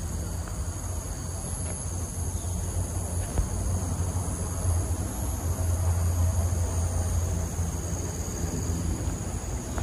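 Steady high-pitched drone of insects in tropical palm-estate undergrowth, over a continuous low rumble that swells a little midway.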